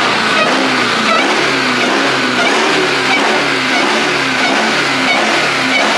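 Car engine revving repeatedly, its pitch rising and falling over and over about every half second.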